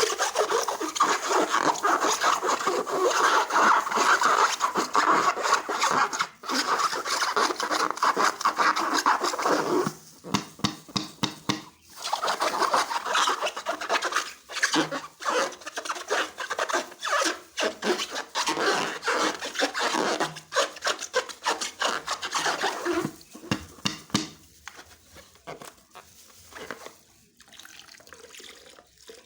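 Slime being squeezed and worked by hand, making dense rubbing and squishing noise. The noise runs unbroken for about ten seconds, breaks into separate sticky clicks for a couple of seconds, comes back dense, then thins to scattered clicks near the end.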